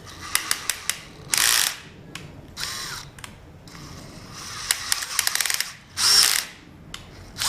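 Power drill run in several short bursts into a curved metal mounting bracket, with runs of rapid clicking as the bit catches on the uneven metal.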